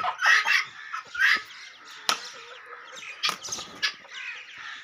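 Aseel chickens calling and clucking: a quick run of loud calls in the first second and a half, then softer scattered calls with a few sharp knocks.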